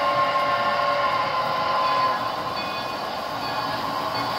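Model steam locomotive running on the layout track. A held tone sounds for about the first two seconds, then gives way to a steady rushing noise.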